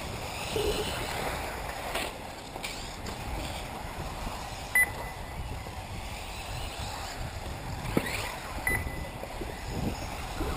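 1/8-scale electric RC buggies racing on a dirt track: electric motors whining, one rising as a car accelerates near the end, with a few knocks as the cars land or hit the track. Two short high beeps sound, one about halfway through and one near the end.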